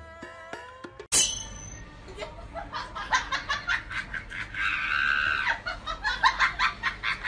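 Laughter in quick, repeated bursts, loudest near the middle, after a second of music that cuts off abruptly.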